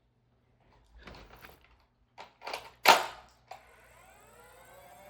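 A Nerf dart blaster being handled and fired: soft rustling, a few clicks, then one sharp loud snap about three seconds in. After it a tone with several overtones comes in and slowly rises to the end.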